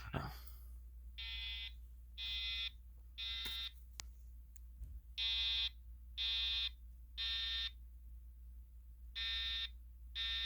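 EST Genesis horn strobe sounding the temporal Code 3 evacuation pattern: three half-second horn blasts, then a pause, with the group repeating three times. A sharp click comes right at the start.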